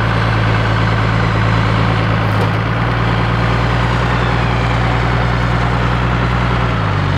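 Four-wheel drive's engine running with a steady low hum while its front winch pulls the vehicle up onto a rock; the hum drops slightly in pitch near the end.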